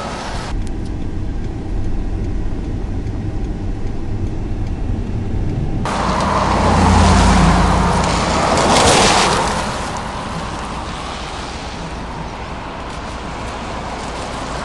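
Road traffic on flooded streets: a steady low rumble of vehicles, with a rushing hiss that swells twice in the middle as cars pass through standing water on the road.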